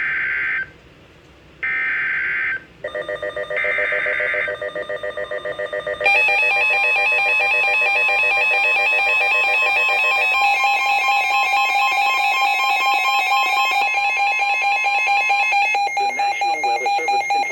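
NOAA Weather Radio alert tones opening a severe thunderstorm warning: three short data bursts of the SAME header about a second apart, then the long steady 1050 Hz warning alarm tone. A weather radio receiver's own pulsing alarm beeps over them from about three seconds in.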